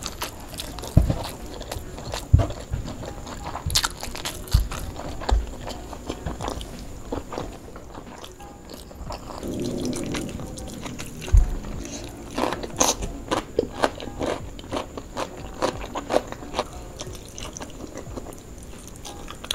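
Close-up eating: chewing and crunching of fried food, with many sharp clicks and a few low knocks from fingers working on a metal tray.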